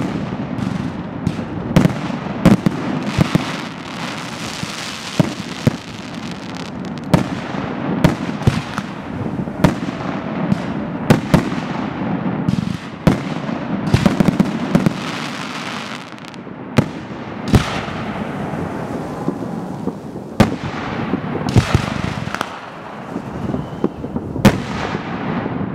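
Aerial fireworks display: an irregular, rapid series of loud bangs from shell bursts, with a dense crackle between them.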